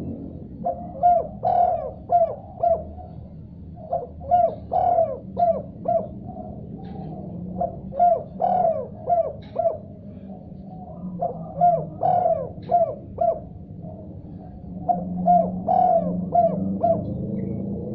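Spotted dove (tekukur) cooing in about five phrases of quick repeated notes, with short pauses between the phrases.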